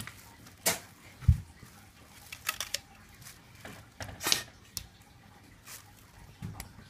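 Irregular light taps and clicks against a glass door as a dog paws and scrabbles at it, with a dull thump about a second in and a quick cluster of taps a little past the middle.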